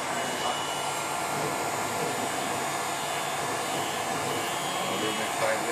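Electric heat gun running steadily, its fan blowing hot air onto a cracked phone screen to loosen the glass for removal.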